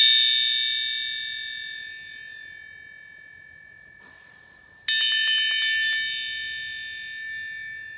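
Small slotted brass bell jingled by hand: a quick run of clinks, then a clear ringing chord of several high tones that slowly fades. It is jingled again about five seconds in and rings on.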